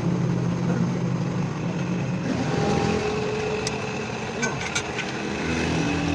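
A steady motor hum with a few faint sharp clicks in the second half.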